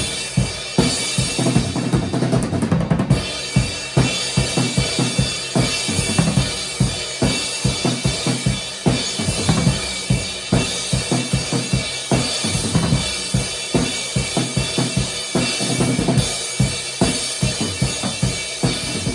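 A budget drum kit played with sticks: a Rogers snare and toms on old reused heads and a 22-inch bass drum, struck in a continuous groove of several hits a second, with cymbals ringing over the hits.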